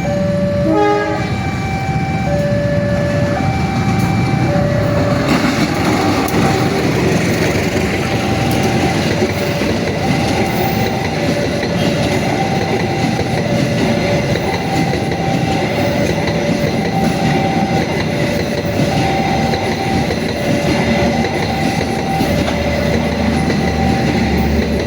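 Railway level-crossing alarm sounding its two-tone warning, the two tones alternating every second or so. A train passes over the crossing, and its rumble and wheel clatter thicken from about five seconds in.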